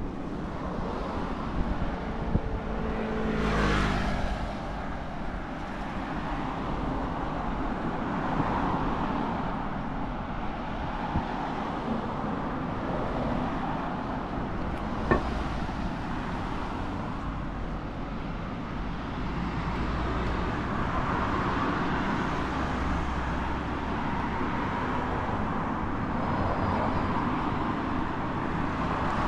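Road traffic passing, a steady wash of vehicle noise that swells and fades as cars go by. One vehicle passes about three seconds in with a falling engine note, and there is a single sharp click near the middle.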